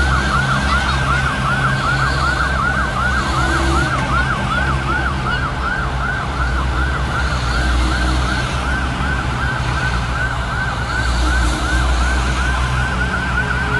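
Emergency siren in a fast yelp, its pitch rising and falling about three times a second, over the steady low rumble of passing military trucks' engines.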